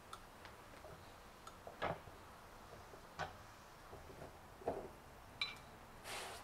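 A few faint, separate clicks and creaks from a 3/4-inch NPT pipe tap being turned with a crescent wrench, cutting threads into the drilled hole in a plastic rain barrel's wall. A short rustle comes near the end.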